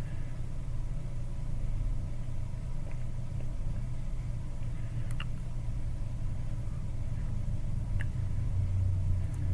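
Steady low electric hum of micro-soldering bench equipment running while a chip is lifted off a phone logic board, with a few faint light clicks; the hum grows stronger near the end.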